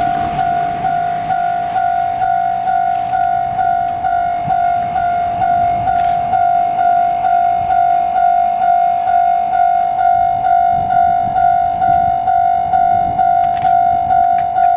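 Japanese railroad crossing alarm sounding: a loud electronic bell tone repeating evenly about two and a half times a second. It is the warning that the crossing is closed and its barriers are down for an approaching train.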